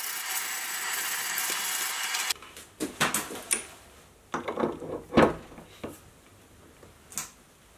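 A steady harsh hiss that cuts off abruptly about two seconds in. After it comes a string of separate metal clunks and clicks, the loudest about halfway through, as a spindle grinder on its steel bracket is fitted onto a lathe's quick-change toolpost and locked in place.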